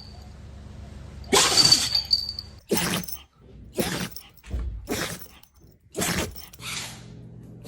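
A dog sneezing over and over: one longer, harder sneeze, then a quick string of about six short sneezes.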